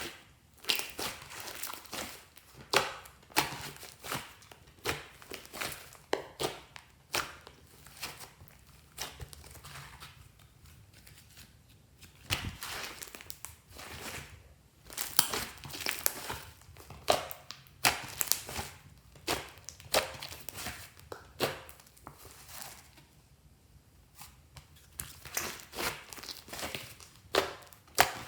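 Butter slime, glue slime mixed with soft clay, being squeezed, stretched and pressed by hand, giving irregular sticky crackles and pops in clusters with short pauses between.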